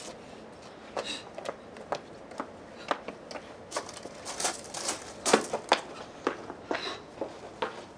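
Irregular clicks and knocks with some rustling, busiest in the middle, and the loudest knock a little past five seconds in.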